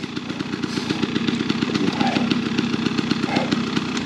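KTM 300 XC TBI's two-stroke single-cylinder engine idling with a rapid, even putter of firing pulses.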